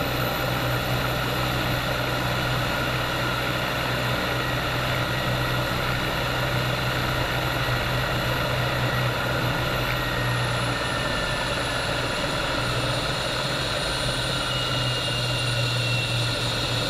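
Bell 430 helicopter's twin turbine engines and rotor running steadily: a constant low drone under a broad turbine whine. About ten seconds in, a high whine glides down in pitch and settles.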